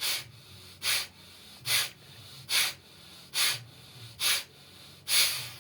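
Kapalbhati breathing: seven sharp, forceful exhalations through the nose, a little under one a second, the last one longer.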